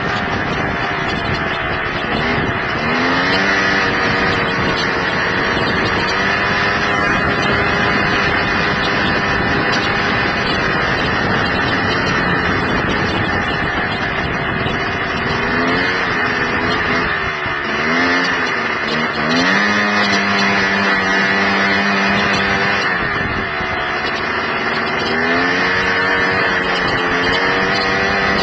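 Honda Pilot FL400 dune buggy's single-cylinder four-stroke engine running hard on the move, its pitch rising and falling several times as the throttle opens and closes.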